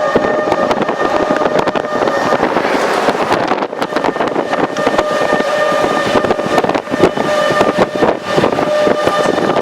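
Outdoor tornado warning siren sounding one steady tone, fading out a few seconds in and coming back about halfway through, under heavy gusting wind buffeting the microphone.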